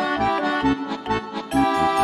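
Background music: a melodic tune over a steady, evenly spaced beat.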